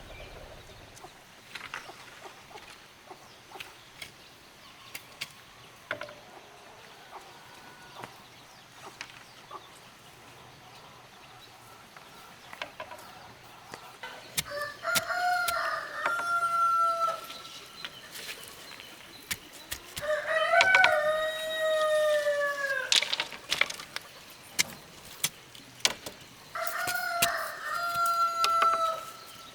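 Rooster crowing three times, each a long call held and then falling off at the end, in the second half. Before the first crow there are only scattered faint clicks and taps.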